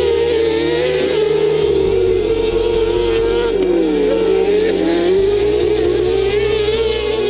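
Kartcross buggy engine running hard at high revs, its pitch wavering and dipping twice around the middle as the throttle comes off and goes back on. Background music with a steady bass line plays underneath.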